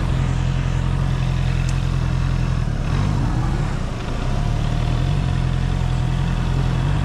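Honda CB650R inline-four engine running steadily at low revs while the bike rolls slowly, its pitch dipping and rising briefly about three seconds in.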